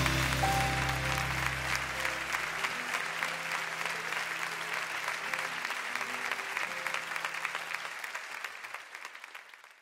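Theatre audience applauding while the band's last held chord dies away over the first few seconds. The applause fades out near the end.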